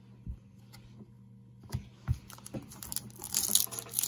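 Trading cards being handled, with a few scattered light taps and clicks, then from about three seconds in the rising crinkle of a trading-card pack wrapper being worked open.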